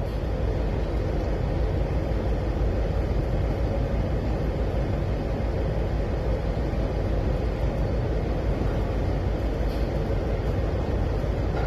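Steady low rumble and rushing noise aboard a container ship under way in open sea, unchanging throughout.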